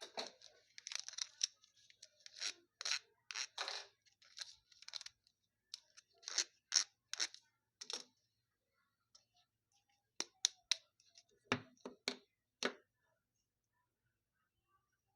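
Packaging being opened by hand: a quick run of short rasping strokes for about eight seconds, then a few sharp clicks.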